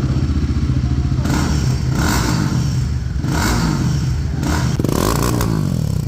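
Royal Enfield Guerrilla 450's single-cylinder engine running with its exhaust removed, open with no muffler, loud and blipped repeatedly on the throttle, with a rev that rises and falls near the end.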